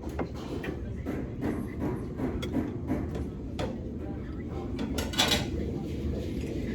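Cutlery and dishes clinking on a dining table in scattered light clicks, with a louder clatter about five seconds in, over a steady low room rumble.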